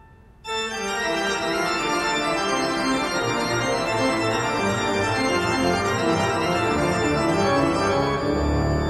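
Organ music: sustained, full chords with shifting notes, starting abruptly about half a second in.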